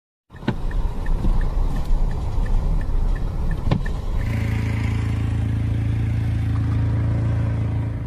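A car's engine and road noise heard from inside the cabin while driving through deep snow, with a light regular ticking about three times a second and two sharp knocks in the first half. About four seconds in it changes to a steady low engine hum.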